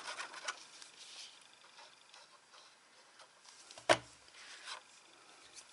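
Faint rustling of card and a plastic craft-glue squeeze bottle being worked along a paper flap, then one sharp knock about four seconds in as the glue bottle is set down on the cutting mat.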